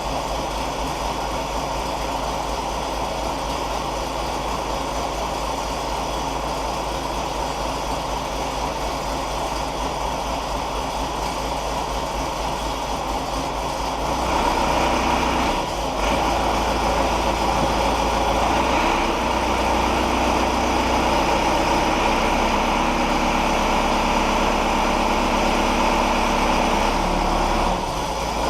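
JCB 214 backhoe's diesel engine running steadily; about halfway through it gets louder and fuller, with two brief dips in level afterwards.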